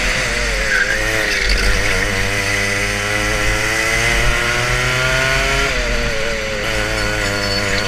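Two-stroke racing kart engine heard from onboard the kart, its pitch climbing steadily for several seconds under throttle, dropping sharply about six seconds in as the kart slows into a corner, then climbing again.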